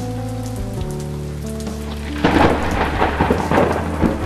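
Rain falling steadily, with a crackling peal of thunder breaking in about two seconds in and rolling on for about two seconds before easing.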